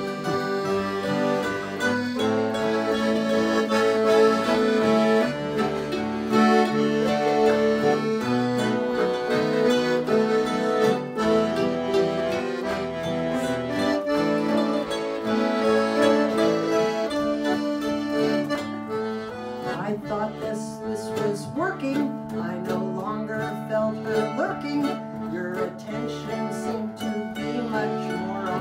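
Instrumental break on accordion, acoustic guitar and mandolin: the accordion carries the melody over strummed guitar, and about two-thirds of the way through the plucked strings come forward as the accordion's held notes thin out.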